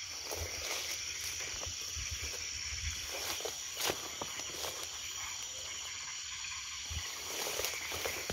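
Night chorus of insects and frogs, a steady high-pitched trilling, with scattered soft clicks and rustles of footsteps moving through undergrowth.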